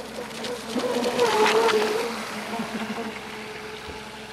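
AquaCraft P-27 Gunslinger RC boat's brushless electric motor whining at speed, with hissing spray off the hull. It swells as the boat passes close about a second and a half in, the pitch dipping slightly, then fades away.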